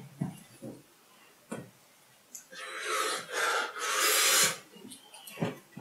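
Heavy breathing through the mouth, air hissing out in about three long breaths between two and a half and four and a half seconds in, from a mouth burning after a very hot chilli sauce.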